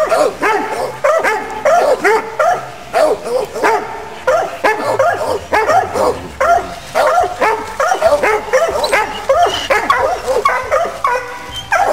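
Hunting dogs barking and baying in quick, overlapping volleys, several barks a second without a break: the steady bay of dogs holding a ram at bay.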